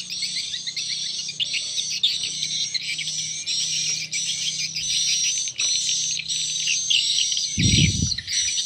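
Recorded swiftlet lure calls played together through a pair of square tweeter horns on a swiftlet-house sound player: an 'akau' chick-call track and a 'tarik senja' young-swiftlet call track. They make dense, high chirping and twittering in short phrases that repeat roughly every half second. A dull thump comes near the end.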